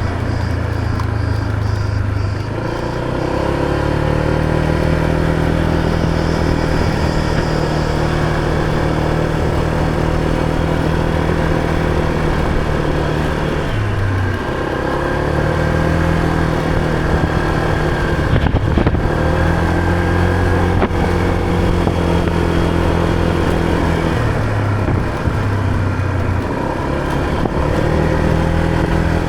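Motor scooter engine running while being ridden. Its note holds mostly steady, and the engine speed drops and picks up again a few times.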